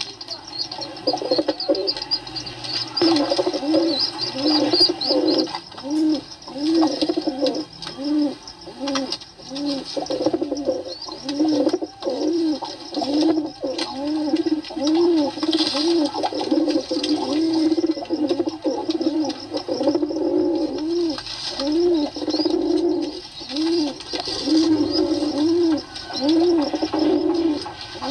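Pigeons cooing continuously, several birds overlapping in a run of low, rising-and-falling coos about one a second. High chirping comes in during the first few seconds.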